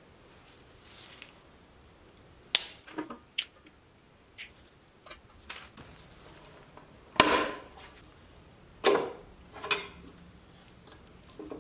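Pressed-steel toy truck cab and its small parts handled on a wooden workbench: scattered light clicks and knocks, the loudest a sharp knock with a brief ring about seven seconds in. A few more knocks come near the end as the windshield piece is fitted into the cab.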